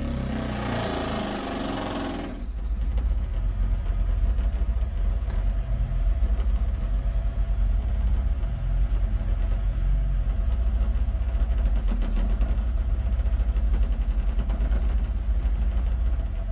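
SSA Icon 15-inch car subwoofers playing deep, steady low bass tones from a sine-bomb test track, heard from outside the pickup with its doors open. The bass pulses rapidly in loudness and grows louder about two seconds in, when a hiss laid over it stops.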